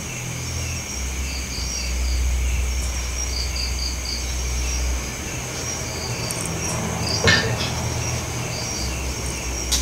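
Night insects: crickets chirping in short runs of three or four every couple of seconds over a steady high insect drone. A low rumble comes and goes, and there is a single sharp knock about seven seconds in.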